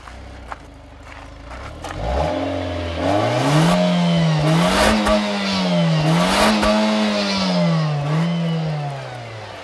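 Nissan Juke Nismo's turbocharged 1.6-litre four-cylinder engine revved at standstill, heard at the exhaust tip: it idles, climbs sharply about two seconds in, is held high with three brief dips, and falls back to idle near the end.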